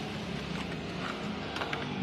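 A motor vehicle engine running steadily, a low hum, with a few light clicks.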